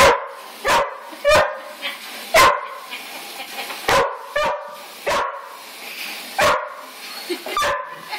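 A border collie barking: about ten short, sharp barks at uneven intervals, over the steady hiss of water running from a hose into a plastic bucket.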